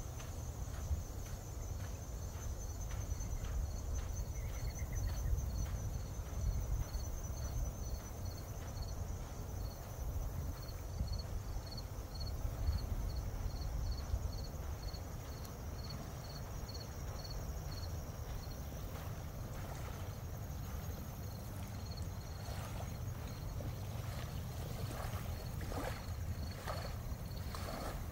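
Insects chirping: a high, rapid trill that fades after the first half, and a steady high chirp repeating about twice a second, over a constant low rumble. Footsteps on the trail come through toward the end.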